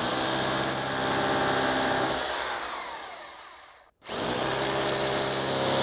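Hammer drill boring into a brick wall: it runs at full speed, slows and winds down, stops briefly about four seconds in, then starts again for a second hole.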